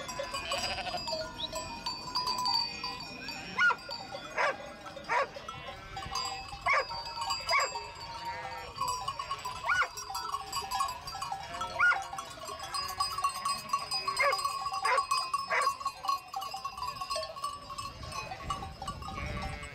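A large flock of sheep bleating, with many short, overlapping bleats near and far and a steady high tone running underneath.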